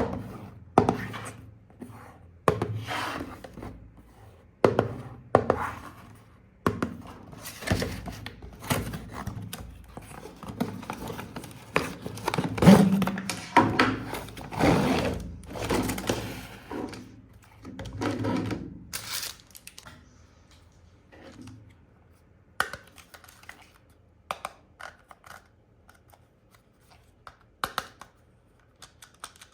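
Irregular knocks, thunks and rustling of packaging being handled during an unboxing, busiest in the first two-thirds and thinning to scattered light clicks near the end.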